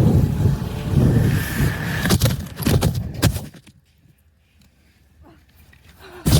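Snowmobile running while wind buffets the phone's microphone, a loud rough rumble that falls away to near quiet a little past three seconds in, with a few faint knocks, before a loud rush of noise comes back at the very end.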